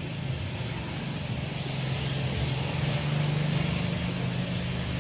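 A steady engine drone with a low hum, swelling slightly midway.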